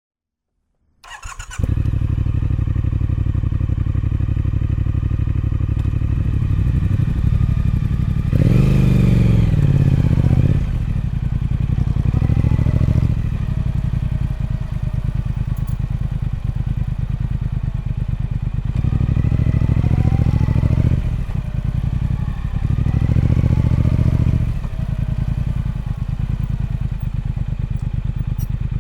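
Triumph Speed Twin 1200's 1200cc parallel-twin engine on its stock exhaust starting about a second in and settling into a steady idle. It is blipped four times, the pitch rising and falling each time, the first blip the longest and loudest.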